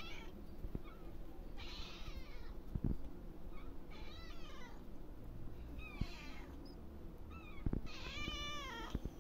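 Domestic cats meowing, about four separate meows a couple of seconds apart, the last one near the end the strongest. A few light knocks fall between them.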